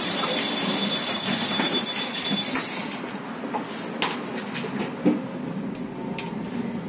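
SOR NB 12 city bus heard from inside the cabin as it pulls away from a stop and drives on: a steady high whine over hiss for the first few seconds, then a quieter running rumble with cabin rattles and a couple of sharp knocks.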